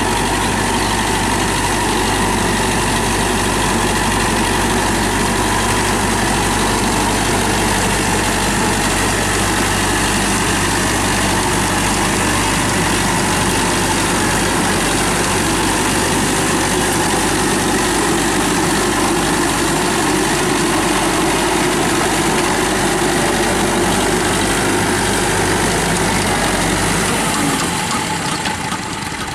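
TAFE 5900 DI tractor's diesel engine running steadily under load as it drives a rotary tiller through wet mud. The deep low drone drops away near the end.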